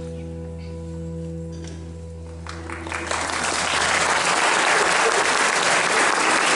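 The last held chord of the song's accompaniment, fading away, then audience applause breaking out about three seconds in and carrying on.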